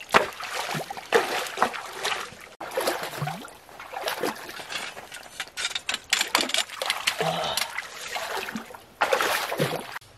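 Shallow muddy water splashing and sloshing irregularly as someone wades and plunges a woven basket fish trap and a hand net into it to catch fish.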